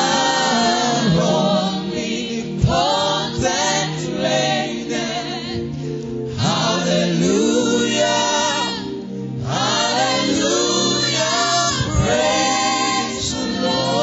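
Gospel choir singing a worship song, led by a solo singer on a microphone, over steady sustained low notes.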